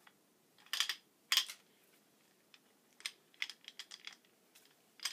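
Sharp metal clicks and clinks from a Ridgid OO-R hand pipe threader's die head being handled: two louder clicks about a second in, then a run of lighter, quicker clicks later on.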